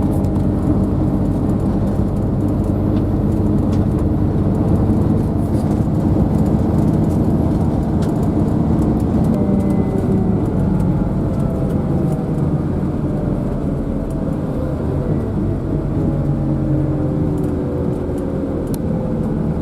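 Army tank moving, its engine running with a steady low rumble whose pitch slowly shifts about halfway through, with faint scattered clicks over it.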